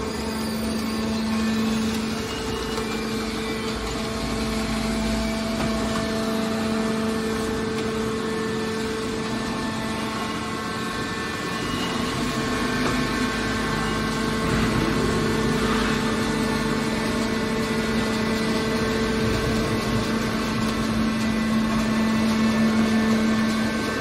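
Hydraulic scrap-metal baler's electric motor and pump unit running steadily: an even machine hum with a constant low tone.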